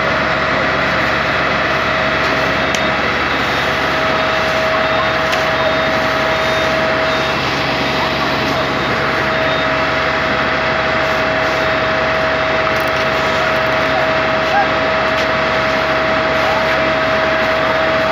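A fire tender's engine running steadily, with a steady tone through it and voices in the background. A faint repeating beep sounds through the first several seconds.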